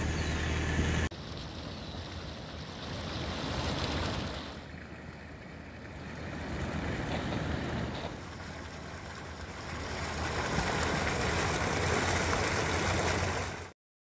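A low steady hum for about the first second, then outdoor wind and water noise beside a flooded river, swelling and easing in gusts. It cuts off suddenly near the end.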